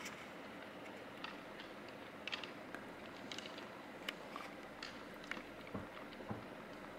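Antlers of two white-tailed bucks clicking and clacking as they spar with locked racks: scattered sharp ticks, with two dull thumps near the end.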